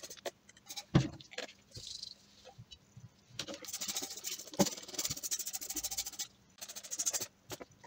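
Distilled water squirted from a wash bottle through a funnel into a glass round-bottom flask, in short hissing spurts, with a few sharp clicks and knocks of glassware being handled.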